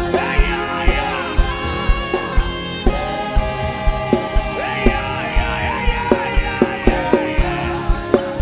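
Live gospel worship band playing: held keyboard chords over a steady drum beat, with a voice singing over the top.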